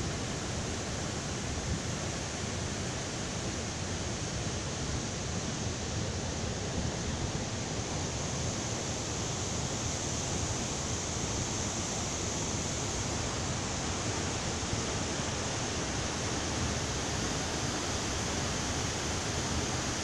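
Steady, unbroken rush of falling water from a waterfall.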